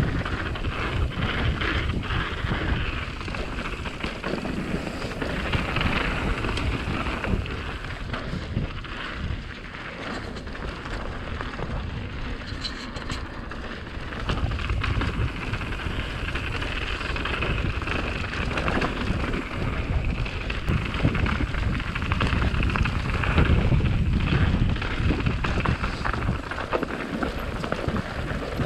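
YT Capra Core 1 MX full-suspension mountain bike ridden fast down a dirt and stone forest trail: tyres crunching and skittering over dirt and stones, and the bike rattling over bumps, with steady wind rumble on the microphone that swells as speed picks up.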